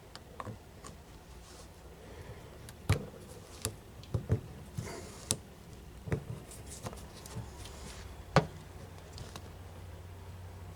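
Scattered light clicks and knocks of hydraulic cylinder parts and tools being handled on a workbench during a seal rebuild, about a dozen in all, the sharpest about three seconds in and again near eight and a half seconds, over a faint steady low hum.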